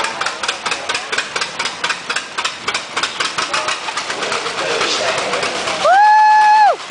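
Antique John Deere two-cylinder tractor engine running with an even, rapid putting beat of about five a second. Near the end a loud, steady high-pitched tone sounds for just under a second, sliding up as it starts and down as it stops.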